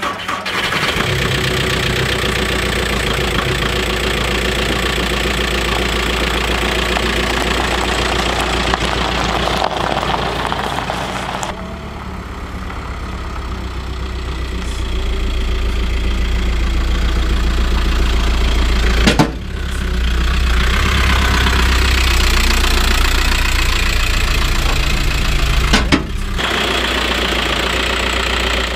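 VW T5 van's engine running steadily, its level dipping and then slowly rising again partway through, with two sharp clicks later on.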